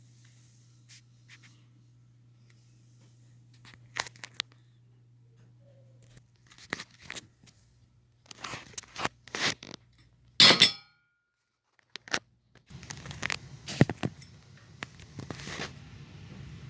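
Irregular clicks, knocks and scraping of hands handling hardware, with a loud rustling burst about ten seconds in. The sound cuts to dead silence briefly, then comes back over a louder background hum.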